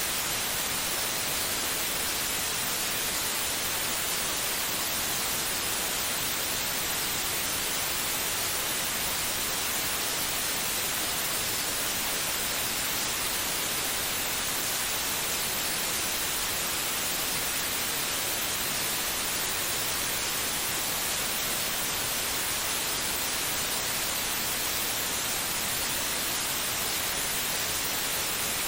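Steady white noise: an even, unchanging hiss, heaviest in the high range, used as a baby-calming sleep sound.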